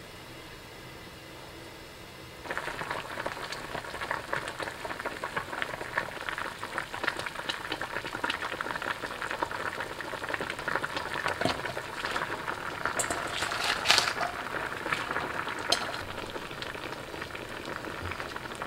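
A stainless steel pan of kimchi and napa cabbage broth boiling hard on a gas stove: a dense bubbling crackle that comes in sharply about two seconds in, after a quieter steady hiss. A few sharper clicks stand out near the middle.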